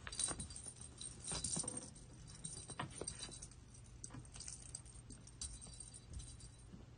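A cat batting a small plastic jingle-ball toy across carpet: irregular jingling and rattling with soft scuffs, in uneven spurts.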